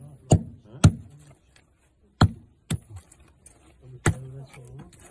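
Five sharp strikes of a small metal hand tool chipping into packed earth, irregularly spaced, some followed by a faint metallic ring.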